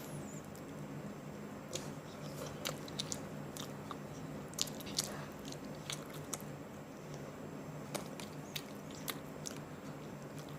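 A person chewing and biting hot and spicy chicken close to the microphone, with irregular sharp mouth clicks scattered throughout, over a steady low hum.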